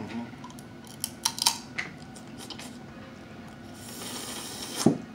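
Close-miked eating of boiled seafood: a few sharp clicks of shell being handled about a second in, then a drawn-out sucking slurp ending in a sharp smack near the end.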